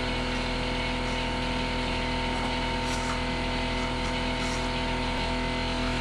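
A motor running steadily, a constant hum with a few faint clicks over it.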